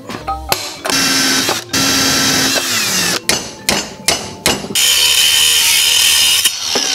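Power tools working aluminium flat stock: a motor runs steadily and winds down, then four sharp metal knocks, then an angle grinder grinds the aluminium bracket's corners with a steady high whine.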